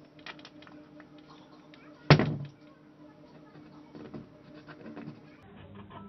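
Light clicks and taps from a metal window hook being handled on a wooden window, with one loud knock about two seconds in that rings briefly. A faint steady hum runs underneath.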